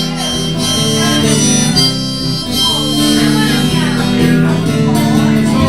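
Harmonica playing a melody in held notes over acoustic guitar accompaniment, in a live instrumental break.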